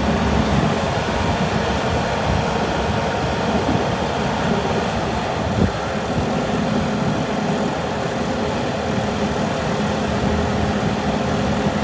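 Bobcat S770 skid-steer loader's diesel engine running steadily, with one brief knock about halfway through.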